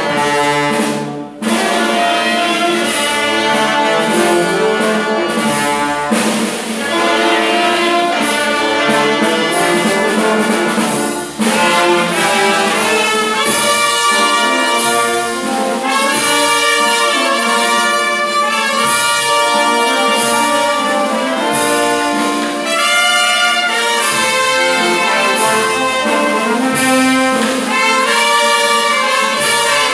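Brass band playing, with trumpets and trombones carrying the melody over a regular beat. There are brief drops in sound about a second in and again around eleven seconds.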